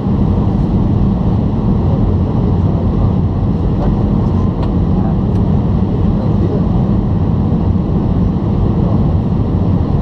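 Steady cabin noise inside an Airbus A320-214 on approach: the low hum of its CFM56 engines and the rush of air past the fuselage, heard from a seat over the wing.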